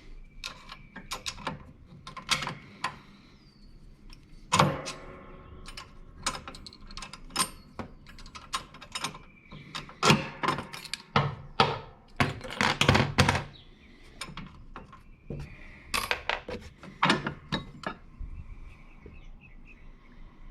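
Irregular metal clanks, clicks and knocks from hand work on a lawn tractor's mower deck linkage as a retaining clip is worked off the side suspension arm. A few knocks ring briefly, the clearest about four and a half seconds in.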